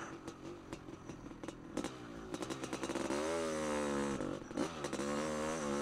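Honda CR500's two-stroke single-cylinder engine ridden on a dirt trail. For the first couple of seconds it runs at low throttle under knocks and rattles. Then it revs up, its pitch rising, holding and dipping as the throttle is worked.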